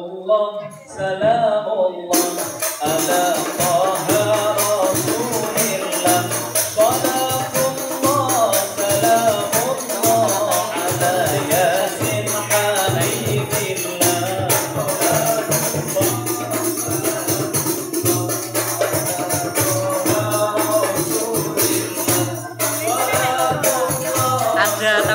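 Al-Banjari ensemble performing sholawat: a lead singer on a microphone, joined about two seconds in by a group of rebana frame drums playing dense, rapid strokes under the voice. The drums drop out briefly near the end and come back in.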